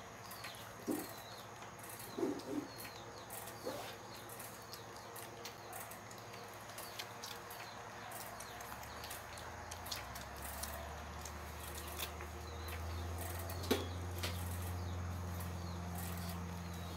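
Puppies nursing from their mother: soft suckling smacks and clicks with a few small grunts, over short high chirps. A low steady hum comes in about halfway.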